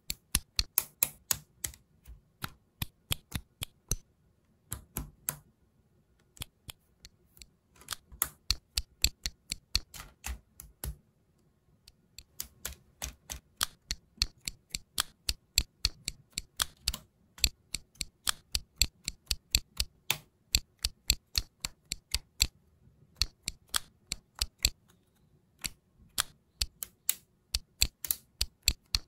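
Lego Technic plastic pins and beams clicking as they are pressed and snapped together by hand: a run of sharp clicks, several a second, with short pauses about four seconds in and again around twelve seconds in.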